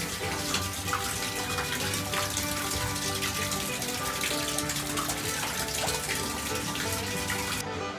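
Running water splashing steadily, stopping suddenly near the end, over background music.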